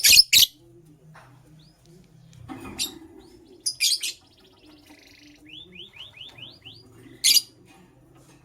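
Lovebird calling: three short, loud, shrill screeches, one at the start, one about four seconds in and one near the end, with a quick run of about five rising chirps in between.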